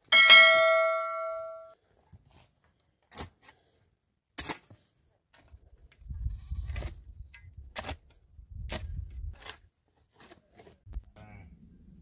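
A bright bell-like ding at the start, ringing out over about a second and a half. It is followed by scattered sharp knocks and low scraping thuds of a hand hoe digging into stony earth, with faint bleating from a flock of sheep and goats near the end.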